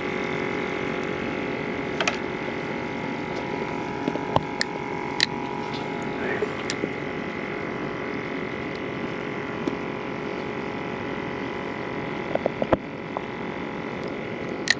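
Steady hum of a small electric motor, holding several even tones, with a few sharp clicks and taps scattered through it.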